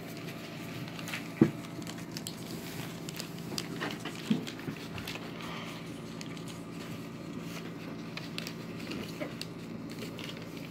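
Paper being folded and creased by hand: light rustling and crinkling clicks, with two sharper knocks about one and a half and four and a half seconds in, over a steady low hum.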